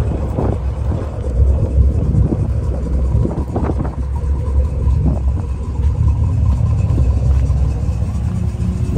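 1973 Chevrolet Corvette's V8 engine running steadily, its sound sitting low, with a few short knocks scattered through it.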